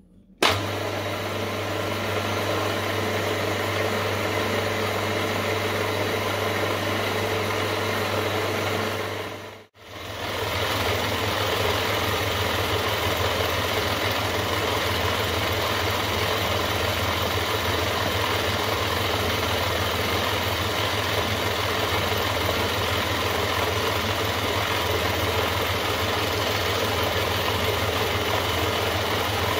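Milling machine switched on about half a second in and running steadily as a fly cutter faces a crank web held in a vise. The sound cuts out briefly just before the ten-second mark, then the same steady running resumes.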